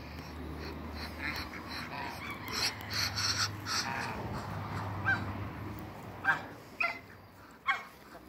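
Light Brahma chickens calling: a run of short clucks and squawks, then three sharp, loud calls near the end.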